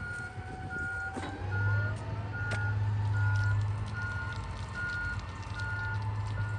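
Komatsu HD405-7 rigid dump truck reversing: its back-up alarm beeps evenly, a little over once a second, over the low running of its diesel engine. About a second and a half in, the engine swells with a rising whine.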